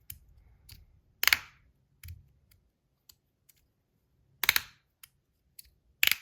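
Magnus Rail V2 titanium fidget slider being slid and snapped, giving sharp metallic clicks: three loud snaps, about a second in, past the middle and near the end, with fainter ticks between.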